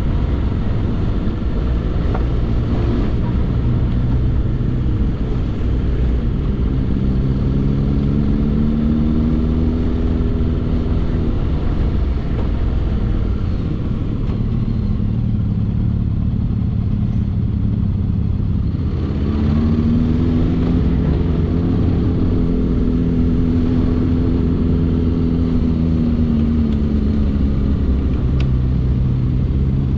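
Motorcycle engine running on the road over a constant low rumble. Its pitch climbs between about 7 and 11 seconds, drops away, holds high from about 19 to 26 seconds, falls, then climbs again near the end.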